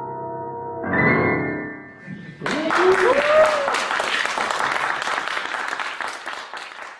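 Grand piano ringing on a final chord, struck again about a second in and let die away. About two and a half seconds in, audience applause breaks out with a couple of whooping cheers, then thins out near the end.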